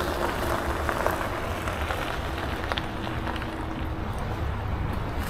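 Tesla electric car slowly reversing over wet gravel, with no engine sound: the tyres crunch, with scattered small pops of stones, over a steady low rumble.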